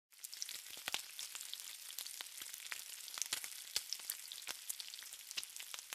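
Eggs frying in a hot pan: a steady sizzling hiss with irregular crackling pops.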